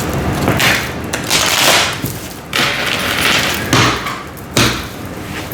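A deck of tarot cards being shuffled by hand: a run of papery swishes and rustles, with sharper card slaps near the middle and end.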